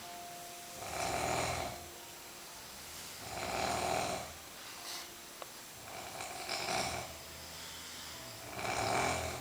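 A sleeper snoring steadily, one snore about every two and a half seconds, four in all.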